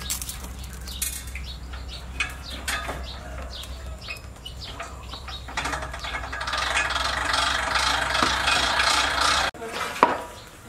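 Water sloshing and splashing as a wooden stick stirs freshly pressed noodles in a wide pan of hot water, with scattered light clicks and knocks. The splashing grows louder and denser about halfway through, and one sharp knock comes near the end.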